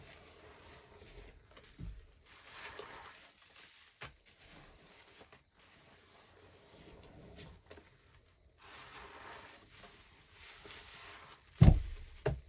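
Hands squishing and swishing a soapy sponge through thick, foamy scouring-powder paste in a tray, soft wet rustling and squelching. Near the end come two loud wet thumps as the sponge is squeezed and pressed into the paste.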